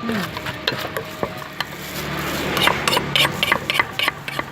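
Pestle and spoon knocking and scraping in a mortar as papaya salad is mixed: a run of quick clicks and taps over a stirring rustle, busier in the second half.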